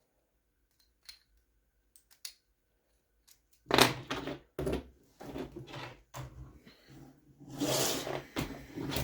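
Small tools and plastic RC parts being handled on a work surface: a few faint clicks, then about five seconds of clattering and rustling.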